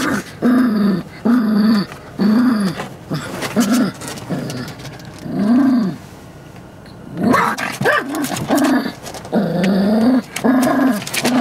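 Small Yorkshire terrier growling and barking at the car's windshield wipers in a fast run of short, rising-and-falling snarls about two a second, with a lull of about a second past the middle.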